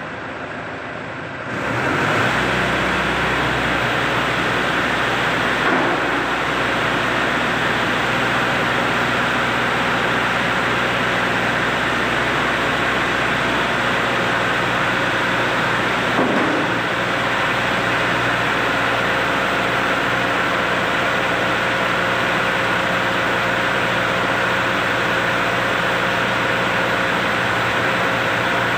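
Machine used to lift loads starting up about a second and a half in, then running steadily with a constant hum and a high steady tone, with a couple of faint knocks.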